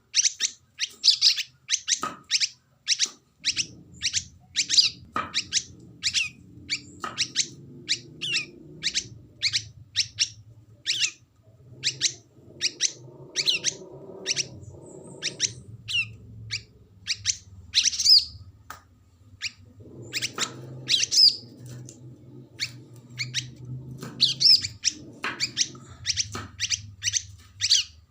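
Cage songbirds, a white-eye (pleci) and a bulbul (trocok), calling back and forth in short, sharp, high chirps at about two a second. A few louder sweeping notes come near the middle and later on, over a faint low background hum.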